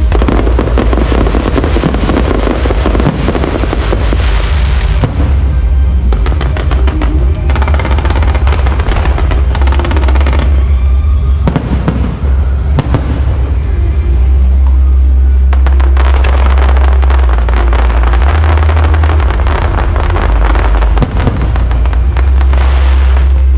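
Fireworks display going off continuously and very loud: dense rapid crackling over a heavy, steady low booming, with a brief lull about twelve seconds in.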